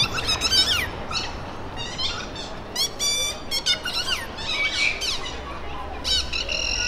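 A string of short, high squeaky chirps and sliding whistle-like squeals, one buzzy squawk about three seconds in and a held whistling tone near the end: a clown's squeaker or whistle sound effects. A car's low rumble comes up near the end.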